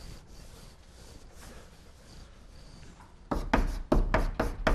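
Chalk writing on a blackboard: a quick run of sharp, scratchy strokes starting a little over three seconds in. Before that, faint rubbing of a board eraser on the board.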